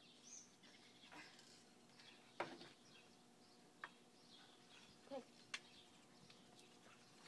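Near silence outdoors, with faint bird chirps now and then and a few light clicks.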